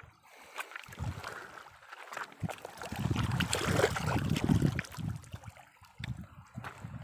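Shallow river water splashing as a hand reaches into it, loudest about three to five seconds in, with wind rumbling on the microphone.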